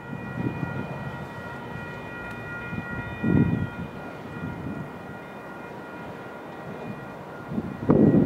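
Grade-crossing warning bells ringing steadily, several tones at once, as a Metra F40PH-2 diesel locomotive approaches. Low rumbles swell briefly about three seconds in and again near the end.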